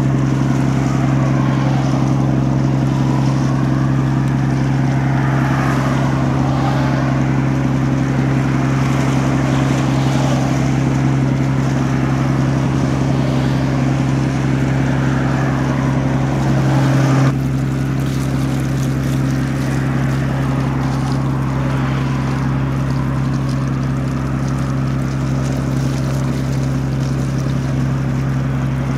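A ship's diesel engine droning steadily at one fixed pitch, with a hiss of water over it. About two-thirds of the way through the sound steps down suddenly.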